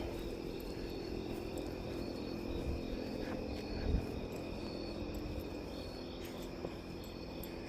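Insects chirping steadily, high and continuous, over a steady low hum and rumble, with one soft thump about four seconds in.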